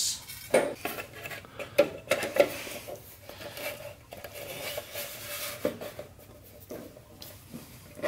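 A NAS case cover being slid on over its metal drive cage. Several sharp clicks and knocks come in the first couple of seconds, then a stretch of sliding and scraping, with a couple more knocks later on.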